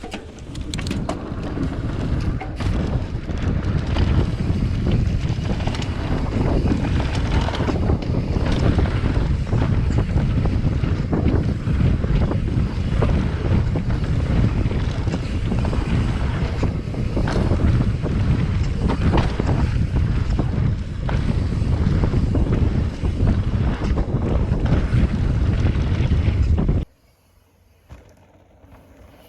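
Wind buffeting an action camera's microphone during a fast mountain bike run on a dirt trail, with constant rumble and frequent rattles and knocks from the tyres and bike. It cuts off suddenly near the end.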